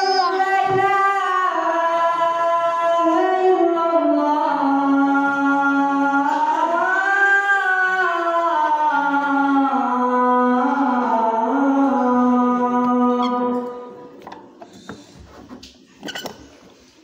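A man's voice chanting one long, ornamented phrase of the azan, the Islamic call to prayer. The pitch winds up and down and swells in the middle. The phrase ends about three-quarters of the way through, leaving a quiet pause with a faint knock or two.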